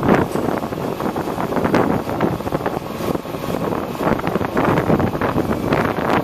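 Gusty wind buffeting the microphone over the running engine of a 1999 International digger derrick truck, rising and falling unevenly.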